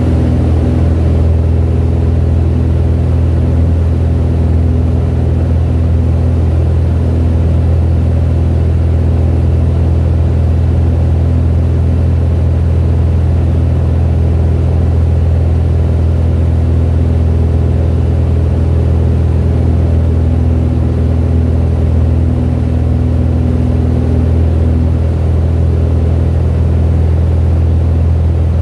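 Piston aircraft engine and propeller droning steadily, heard from inside the cockpit in flight: a loud, deep hum that holds one pitch throughout.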